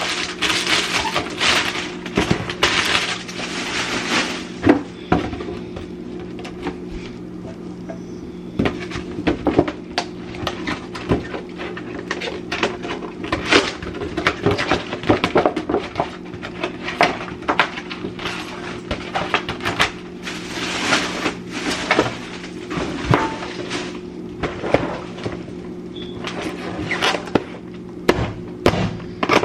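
Household clatter of items being handled while a refrigerator is cleaned out: irregular knocks and clinks of containers and shelves, with bouts of rubbing or rustling, over a steady low hum.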